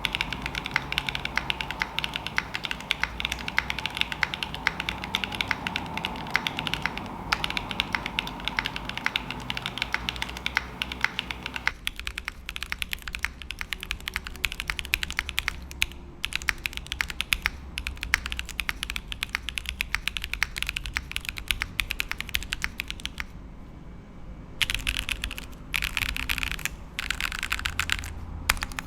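Custom mechanical keyboard being typed on steadily: an aluminium-plate board without foam, with lubed TKD v1-stem / Cherry HG Black-housing linear switches and MOMOKA Elder God Priest keycaps, giving a fast stream of clacks. The typing stops briefly near the end, then resumes in quick bursts.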